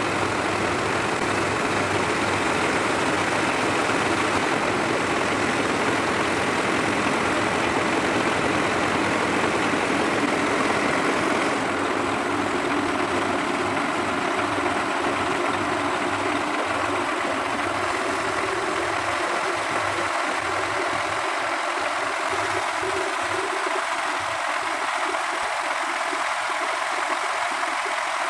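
Heavy tow truck's diesel engine running steadily, powering the recovery winch while its controls are worked. The low part of the sound thins out a little past the middle.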